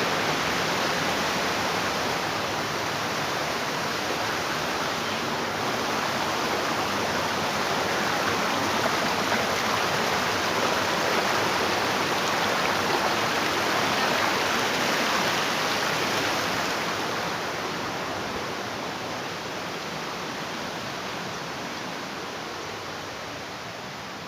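Waterfall water rushing in a steady roar, growing gradually fainter over the last several seconds.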